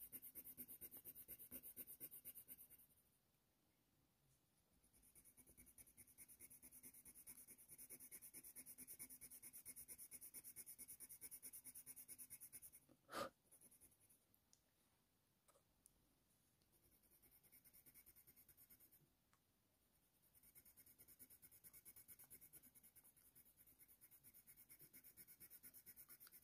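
Faint, rapid scratching of an ivory Faber-Castell Polychromos colour pencil stroking across hot-press watercolour paper, laying down a base layer in several spells of a few seconds with short pauses between. A single sharp click about halfway through.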